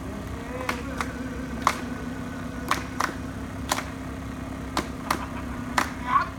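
Sharp percussive hits repeating in a steady rhythm, in pairs followed by a single hit, the pattern coming round about once a second, over a steady low hum.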